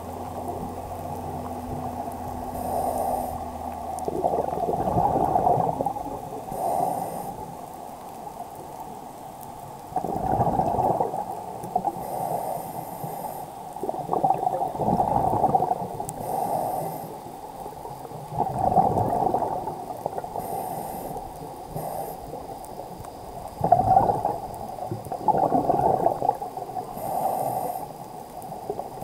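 Scuba diver breathing through a regulator, recorded underwater: a rush of exhaled bubbles every few seconds, with short thin hisses of inhalation between them.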